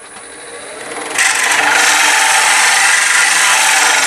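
Hollowing tool on an articulated hollowing rig cutting inside a wooden hollow form spinning on a wood lathe: a loud, steady rasping hiss of wood being cut into shavings. It comes in about a second in, over the quieter sound of the running lathe.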